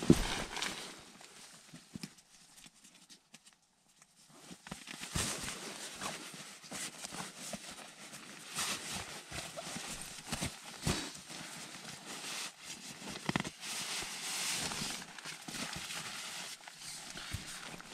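Nylon fabric rustling and crinkling as a synthetic sleeping bag is worked out of its stuff sack and spread over an inflatable sleeping pad, with short irregular scuffs and soft knocks. There is a quieter lull a couple of seconds in.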